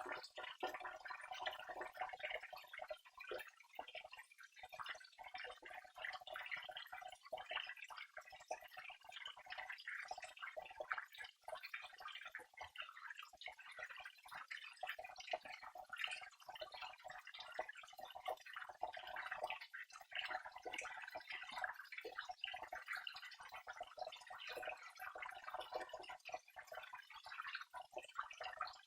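Flowing water trickling and splashing, a continuous patter of many small irregular drips and splashes.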